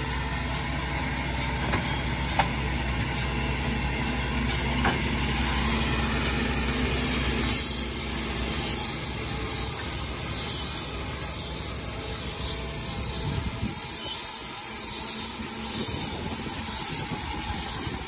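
Fendt Rotana Combi baler-wrapper running behind its tractor, wrapping a round silage bale. About five seconds in a high hiss joins the steady machine hum and pulses about once a second with each pass of the stretch film.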